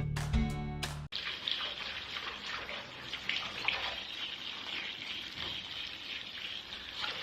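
Plucked guitar music that cuts off about a second in, followed by steady running water with small splashes.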